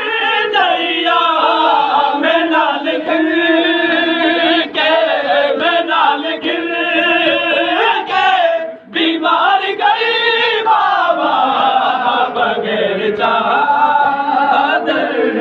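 A group of men chanting a Shia noha (Muharram lament) together, voices rising and falling in a repeated refrain, with sharp slaps at a steady beat. The chanting breaks off briefly about nine seconds in.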